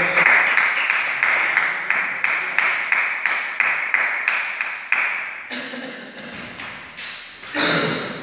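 Applause from a small number of people clapping after a table tennis point, fading out after about five seconds. A short call from a voice follows near the end.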